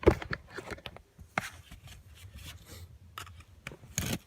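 Irregular sharp clicks, snaps and knocks as a pickup's worn-out factory door speaker is torn away from its plastic mounting bracket by hand. The loudest snap comes right at the start, with another cluster near the end.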